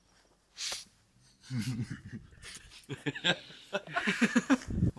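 A short, sharp breath out about half a second in, then men's voices and laughter.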